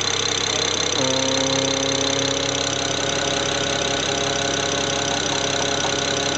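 BMW 335i's N54 twin-turbo straight-six idling warm, with a failing boost-control vacuum solenoid. Its steady tones shift in pitch about a second in.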